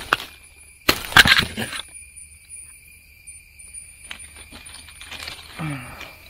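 Machete hacking through a pineapple's stalk among its stiff, spiky leaves. The loudest part is a burst of cutting and leaf rustle about a second in, followed by lighter rustling and ticks. Crickets trill steadily throughout.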